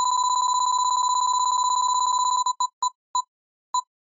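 Electronic beeps at one high pitch in a fast roll that, about two and a half seconds in, slows into single beeps spaced further and further apart: a quiz suspense sound effect winding down before the answer.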